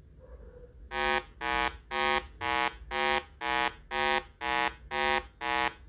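Buzzy electronic beeping, about two even beeps a second, starting about a second in.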